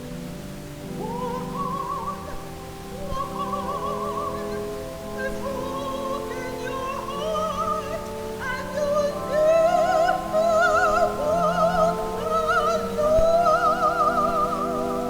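Music: a high solo melody sung in operatic style with wide vibrato over long held accompaniment chords, growing louder about two-thirds of the way through.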